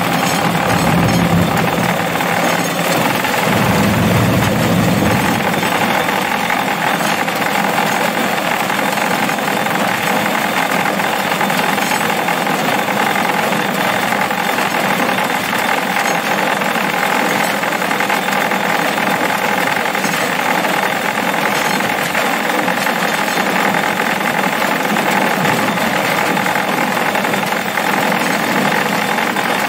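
Rail cart running along the track with a loud, steady mechanical clatter and drone. A deeper rumble in the first few seconds then falls away.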